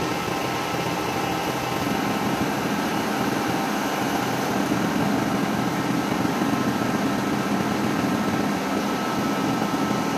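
Metal lathe running steadily, its chuck spinning while a cutting tool turns the bearing seat on a weld-built-up front stub axle to size.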